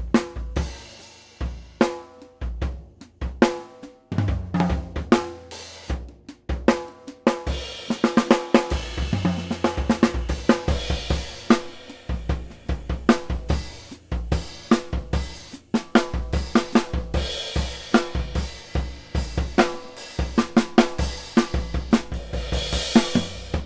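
Drum kit played with sticks in a steady groove, picked up by a pair of overhead microphones: bass drum thuds, snare strokes and cymbal hits. The cymbals get busier from about eight seconds in, and the playing cuts off abruptly at the end.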